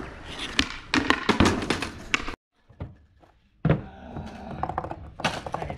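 Skateboard on concrete: several sharp thunks and clacks of the board's tail popping and the board landing, with the rattle of wheels rolling between. The sound cuts to near silence for about a second roughly two and a half seconds in, then the knocks resume.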